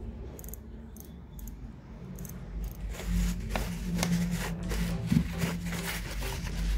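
Irregular metallic clicks and scraping of small parts being handled, starting about three seconds in, as the bearing race is threaded onto a screw-on bicycle freewheel.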